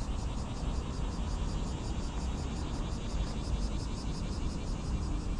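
A high, rhythmic pulsing animal call, about five pulses a second and steady throughout, over a constant low rumble.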